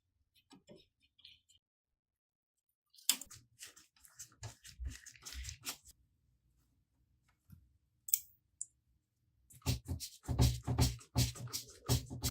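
Two bursts of rapid clicks, taps and scraping from laptop parts being handled and worked on, the second burst denser and louder.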